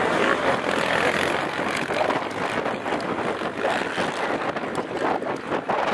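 Race quad (ATV) engines running on a motocross track, a steady, loud mechanical drone with no break.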